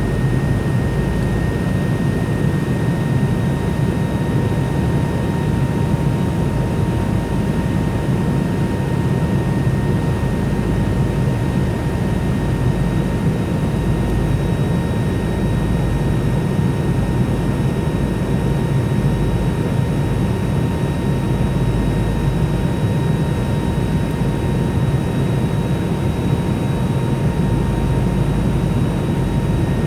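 Steady jet engine and airflow noise of a McDonnell Douglas MD-90 airliner with IAE V2500 turbofans: a low, even rumble with a faint steady whine above it.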